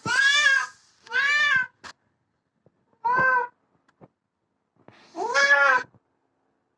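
Domestic cat meowing four times while being bathed: drawn-out calls that rise and fall in pitch, the last one the longest, with short pauses between them.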